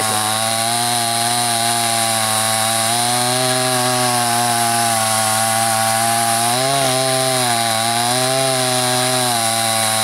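Soyuz semi-professional two-stroke chainsaw running at full throttle as it cuts through a log. Its engine pitch sags a few times under load, most sharply about seven seconds in, then recovers.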